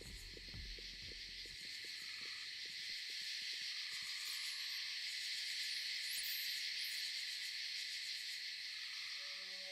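Night-time woodland ambience: a steady, high chirring chorus of crickets, with a few soft owl hoots.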